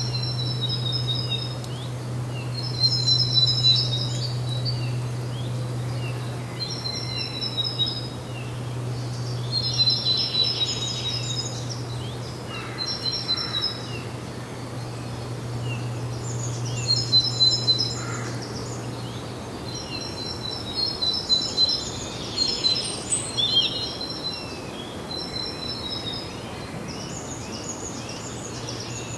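Songbirds singing, with short phrases of rapid high notes repeated every couple of seconds. A steady low hum runs underneath and drops away about two-thirds of the way through.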